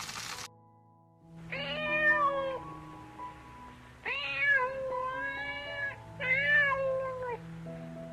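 Domestic cat meowing three times, the middle meow the longest, over soft background music. A hissy noise cuts off about half a second in, before the first meow.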